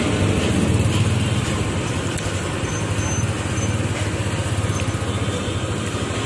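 Steady low rumble of road traffic, with vehicle engines running.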